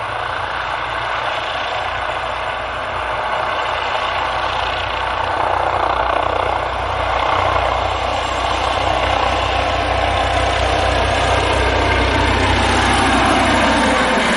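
Eurocopter EC155 (Airbus H155) helicopter's twin turboshaft engines and main rotor running at flight power in a hover and climb-out. It is a steady turbine whine over a low rotor beat, growing louder as it comes close, with tones sliding in pitch near the end.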